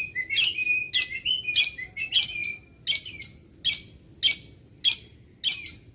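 Lovebird calling: a steady series of about ten shrill, high chirps, roughly one every half second or so, the first few trailing off in a short lower note.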